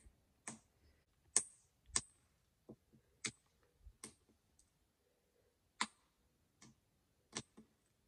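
Clear Listerine-and-hairspray slime being poked, pressed and stretched with the fingers: about a dozen faint, sticky clicks and pops at irregular intervals.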